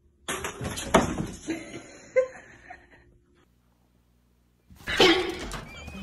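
A sudden clatter on a kitchen counter, with two sharp knocks, as a cat knocks a glass carafe about.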